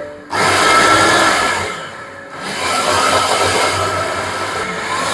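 Electric stainless-steel food chopper running, blending tomato and other ingredients into a smooth paste. The motor noise dips briefly about two seconds in, then runs on steadily.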